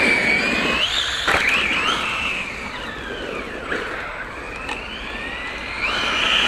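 Brushless 3670 motor and drivetrain of a VKAR Racing Bison V2 RC truggy whining, rising and falling in pitch as the throttle is worked, over a steady rush of noise.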